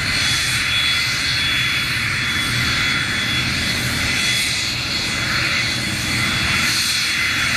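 Cessna Citation II business jet's twin turbofan engines at taxi power: a steady high whine over a hiss, with a low rumble underneath.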